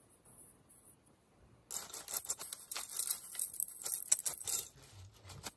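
Cereal flakes poured from a plastic bag into a glass, a dense crisp rattle of flakes against the glass and the crinkling bag, starting about two seconds in.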